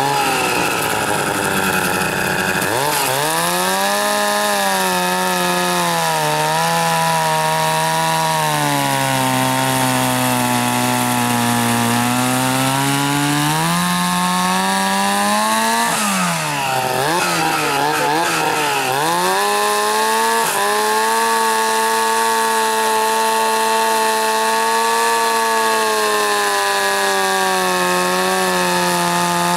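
Vintage two-man chainsaw running under load as it cuts through a thick log, its engine note continuous. The engine slows down about ten seconds in, lugs and recovers several times in quick succession around the middle, then runs steadier at a higher speed for the rest.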